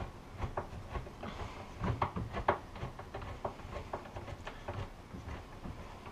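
Hand screwdriver driving a new screw into a cupboard door hinge: irregular small clicks and creaks, a couple a second, as the screw is turned in.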